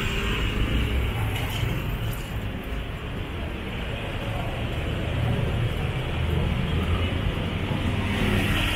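Busy road traffic: the engine of a minibus moving close alongside, with motorcycle and car engines in slow traffic, a steady low rumble.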